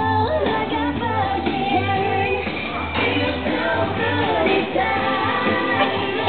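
Pop song playing, a sung melody over a steady, evenly pulsing bass beat.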